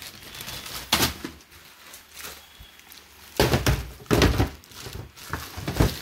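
Clear plastic wrapping on a new washing machine crinkling as it is handled, with several dull thumps against the machine's body, bunched in the second half.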